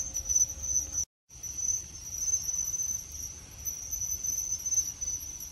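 Crickets trilling steadily at night, a continuous high-pitched chirring, broken by a brief total silence about a second in.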